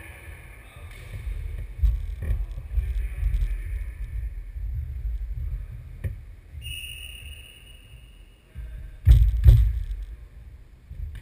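Echoing sports hall during a ball game: a ball thumping on the wooden floor a few times, the loudest double thump about nine seconds in, over a low rumble.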